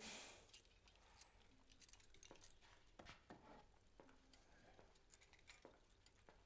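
Near silence: quiet room tone with a brief soft hiss at the start, then faint, irregular clicks and taps.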